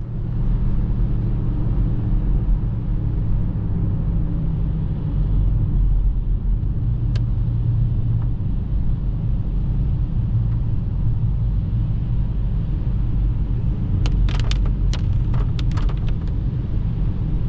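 Tour boat's engines running with a steady low rumble, with a few short clicks or knocks near the end.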